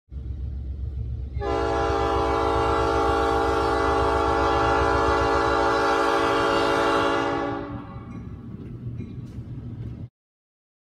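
Diesel locomotive's multi-chime air horn sounding one long chord of about six seconds, starting about a second and a half in, over a low rumble. The horn fades out and the rumble runs on until it cuts off suddenly near the end.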